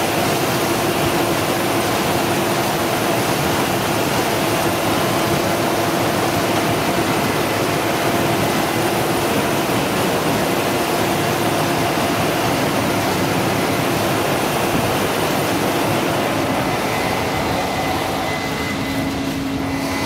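Case IH 8230 combine harvester running under load while harvesting corn: a loud, steady machine noise of engine and threshing. It eases slightly and shifts in pitch near the end.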